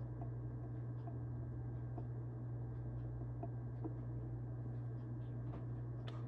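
Faint, scattered small clicks and taps over a steady low hum: quiet kitchen handling noise while baking ingredients are measured and added.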